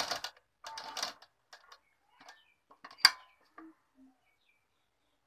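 Domestic sewing machine stitching lace trim onto blouse fabric in two short runs at the start, then stopping. Small taps and fabric handling follow, with one sharp click about three seconds in.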